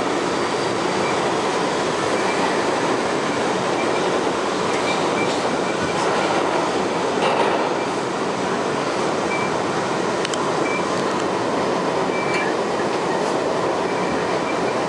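R62A subway car running at speed through a tunnel, heard from inside the car: a steady rumble and rail noise, with a faint high wheel squeal that comes and goes and a few sharp clicks from the wheels over rail joints.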